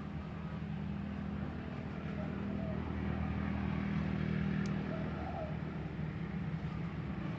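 Mini CNC wood engraving machine running with a steady low hum that swells slightly mid-way.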